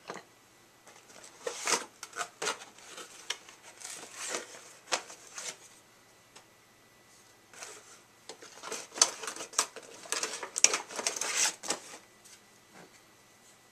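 Clear plastic packaging bag crinkling and rustling in hand while a statue's parts are unwrapped. It comes in two spells of irregular crackling with a pause of about two seconds between them.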